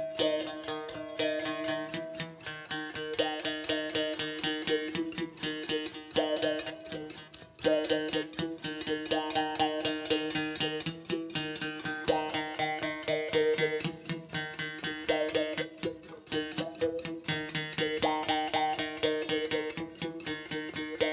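Instrumental music: a rapidly picked string instrument playing a melodic line without singing.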